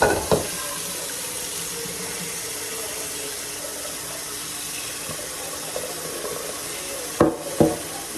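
Kitchen sink tap running steadily, with two sharp knocks at the start and two more near the end.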